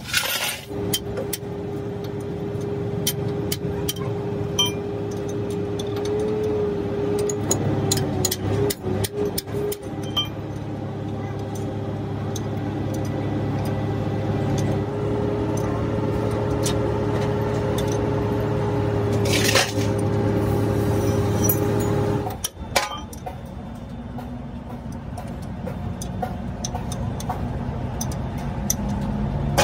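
Steel spanners clinking against bolts and against each other during work on a truck differential housing, over a steady droning tone and low hum. The drone cuts off about three quarters of the way through and gives way to a lower hum.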